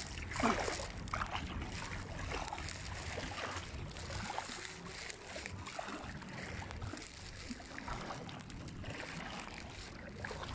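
Legs wading through shallow seawater, with irregular sloshing and splashing at each step.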